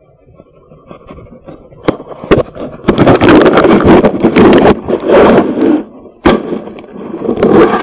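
Loud scraping, rubbing and knocking right against a portable recorder's hard plastic case: contact noise on the microphone, with sharp knocks about two seconds in and again about six seconds in. The uploader takes it for a Sasquatch attacking the recorder.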